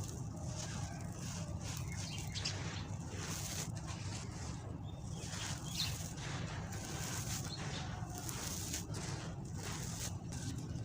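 Dry sand-cement shapes crumbling and crushing: a dense, irregular gritty crunching and crackling of many small breaks, over a steady low hum.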